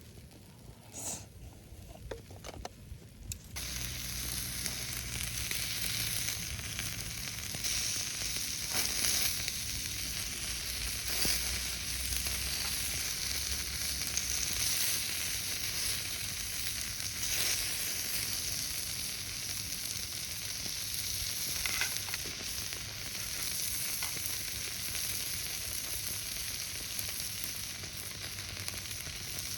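Marinated beef skirt (harami) sizzling on a hot iron griddle. The sizzle starts suddenly about three and a half seconds in, after a few faint clicks, and goes on steadily with occasional pops.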